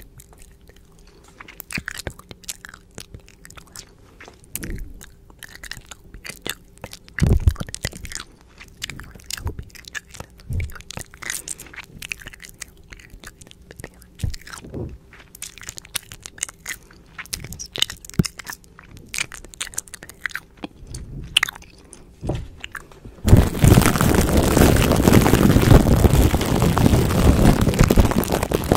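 Close-miked ASMR mouth sounds: scattered wet clicks, smacks and faint unintelligible whispering. About 23 seconds in, hands begin rubbing over the microphone head, a sudden loud, continuous rustling.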